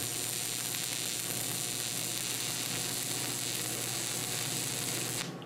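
Stick (shielded metal arc) welding with a 3/32-inch 6013 rod on AC at about 82 amps: the arc runs with a steady, even crackle over a low AC buzz, then breaks off abruptly about five seconds in.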